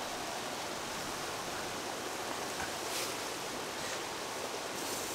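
Steady, even rushing hiss with no speech, broken only by a couple of faint light rustles about three seconds in and near the end.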